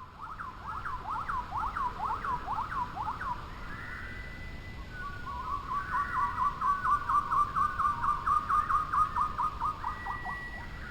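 Songbird singing: a quick series of down-slurred whistled notes, then, about five seconds in, a faster, denser run of notes.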